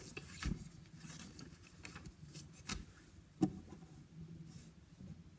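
Faint rubbing and rustling of a paper book being handled, with a few light taps.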